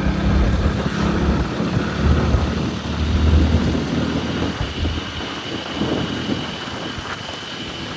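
Motorcycle engine running while riding, with road and wind noise on the microphone. The engine hum is strongest in the first half and eases off a little past the middle.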